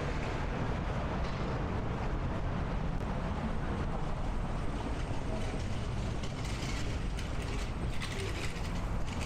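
City street ambience: a steady low traffic rumble, with rapid metallic ticking and rattling in the second half.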